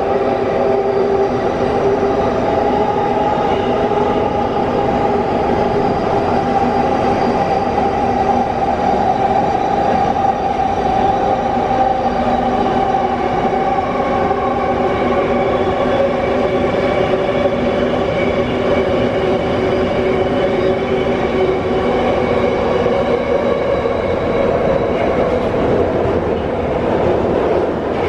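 Wagonmash series 81 metro train (81-572.2/81-573.2 cars), heard from inside the car while running at speed through the tunnel. A steady rumble of wheels and running gear carries a whine of several steady tones from the traction motors and gearing.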